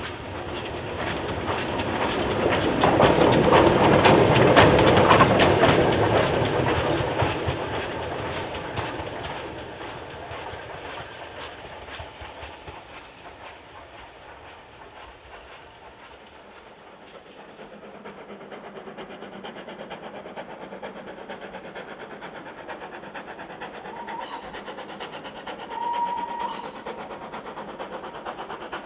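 Steam-hauled train passing close by, growing loud about four to five seconds in and then fading into the distance, with the rapid clickety-clack of wheels over rail joints. A short high tone is heard near the end.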